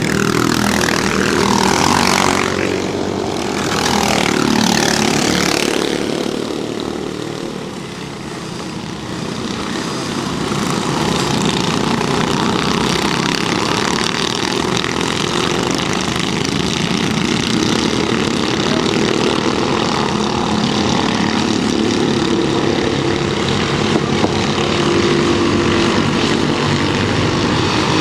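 A pack of 13 hp racing go-kart engines. In the first few seconds karts pass close by, their pitch dropping as each one goes past. Then comes a steady drone of the field running around the circuit further away.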